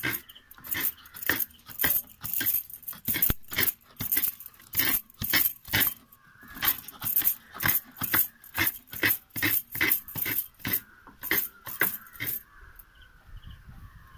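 Coconut being grated by hand: a steady run of short rasping scrapes, about two to three a second, that stops about twelve seconds in.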